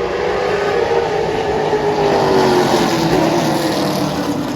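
Pack of limited late model stock cars' V8 engines racing past together at full throttle, several engine notes overlapping, swelling to their loudest about halfway through and then easing off slightly.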